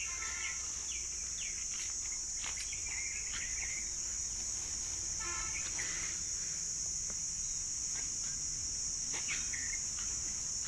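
Steady, high-pitched drone of insects, with a few short bird chirps scattered through it.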